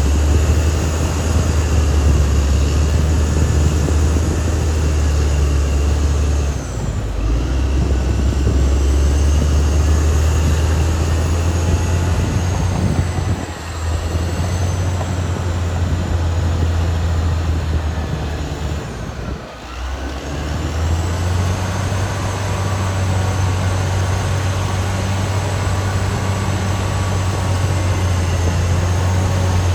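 Caterpillar D6R XL crawler bulldozer running steadily with a deep engine hum, dropping off briefly three times, at about a quarter, about halfway and about two-thirds of the way through, as the load on the engine changes.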